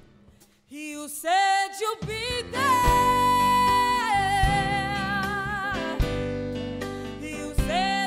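Live band music with female vocals: after a brief pause, the singers come in about a second in. Drums, bass guitar and keyboard join about two seconds in, under long held sung notes.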